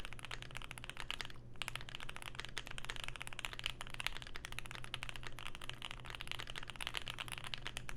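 Fast continuous typing on a Keychron Q1 mechanical keyboard fitted with lubed, filmed Pinoko switches on an aluminium plate, with a tape mod and Poly-Fil inside the case. Keystrokes clack densely, with a brief pause about a second and a half in.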